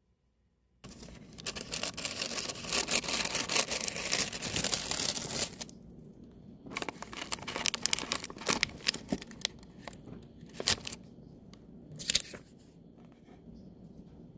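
Crinkly plastic-and-foil snack pouch rustling and crackling as it is handled and pulled from a gift box. It starts about a second in and is dense for about five seconds, then comes as short separate crinkles.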